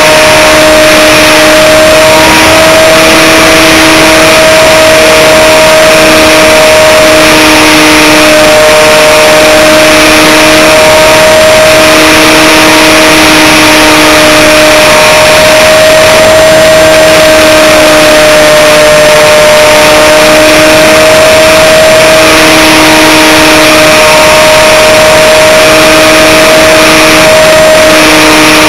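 Aerobird Extreme RC plane's electric motor and propeller whining at a steady pitch, heard from the onboard camera over a constant rush of wind, very loud. A lower hum comes and goes every second or two.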